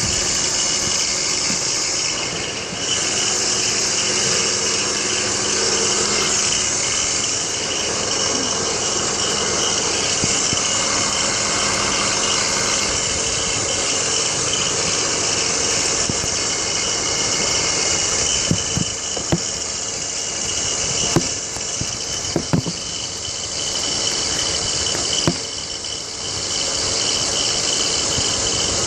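BMW X3 E83 engine running with a steady high-pitched hiss and a thin whine, with several sharp knocks in the second half. The owner suspects a worn tensioner pulley or water pump bearing.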